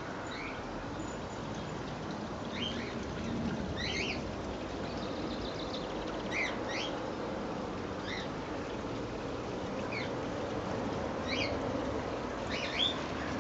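Garden birds chirping in short, separate calls every second or two, over steady background noise.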